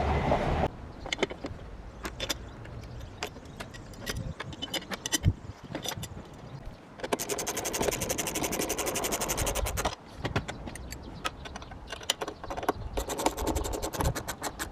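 Workshop handling noise: scattered clinks and rattles of small metal hardware and tools, with a steady rapid buzzing for about three seconds in the middle.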